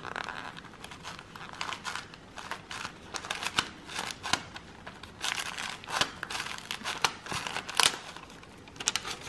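Paper and card rustling and crinkling as a sealed paper flap is worked loose and lifted inside a card gift box, with irregular small crackles and scratches.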